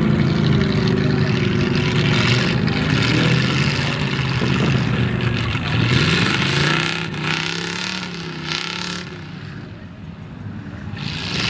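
Lifted square-body Chevy Blazer mud truck's engine running hard as it churns through deep mud: a steady drone for the first half, then the pitch dips and rises as the throttle goes up and down, fading as the truck pulls away. Bursts of rushing noise come from the tyres slinging mud.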